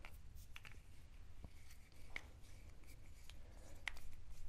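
Faint plastic clicks and rubbing as the DJI Agras T40 spray pump's housing is handled and turned, with a few sharp ticks, the clearest about two seconds in and near the end.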